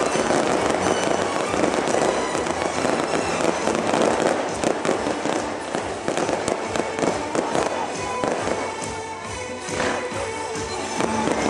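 Aerial fireworks going off in quick succession, a dense run of crackling bangs, over music.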